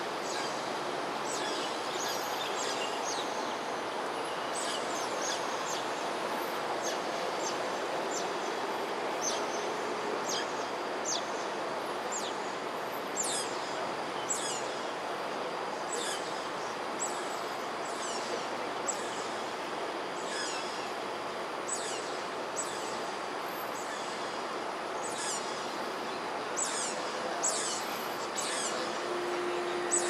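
Smooth-coated otters chirping: many short, high-pitched, falling chirps, several a second at times, over a steady rushing background noise.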